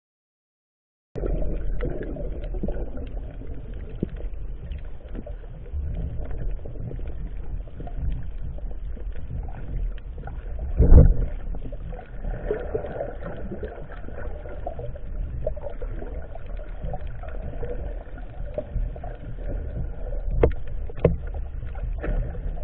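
Muffled underwater noise picked up by a camera in a waterproof housing: a steady low rumble of moving water with scattered knocks, starting after about a second of silence, with one louder thump about halfway through.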